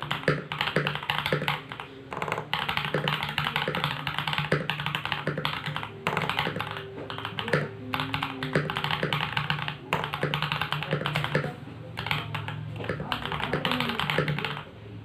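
Fast typing on a modded Fantech Maxfit61 mechanical keyboard with lubed KTT Strawberry linear switches and ABS Cherry-profile keycaps: rapid keystroke clacks in runs of a few seconds, broken by brief pauses. A low steady hum sits underneath.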